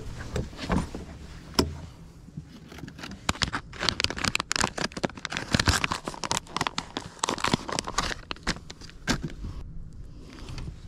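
Plastic soft-bait packaging crinkling and rustling, with many irregular small clicks and knocks, while a fresh soft-plastic stick bait is taken out and rigged.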